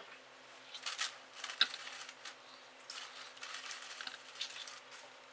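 A metal spoon scraping ripe avocado flesh out of its skin: a run of short, soft scrapes and clicks, over a faint steady low hum.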